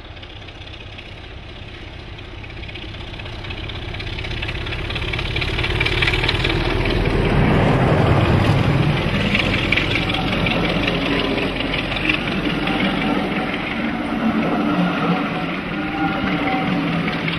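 Class 33 'Crompton' diesel locomotive's Sulzer eight-cylinder engine running under load, growing louder as the train approaches and loudest as the locomotive passes about eight seconds in. Its coaches then rumble past close by on the rails.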